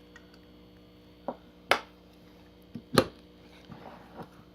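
A handful of sharp, irregular clicks and knocks as a ratchet screwdriver is handled and fitted against the metal of a small two-stroke engine part, loudest twice near the middle. A faint steady hum runs underneath.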